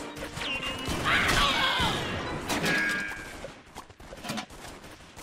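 Cartoon sci-fi laser-gun fire: a string of zapping shots with falling pitch and crackling hits, densest in the first three seconds, then thinning out, with a dull thud about four seconds in.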